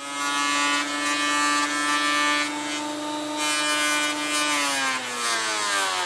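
Delta benchtop thickness planer running with a steady whine over a rough cutting noise, then switched off about four and a half seconds in, its pitch falling as the cutterhead and motor wind down.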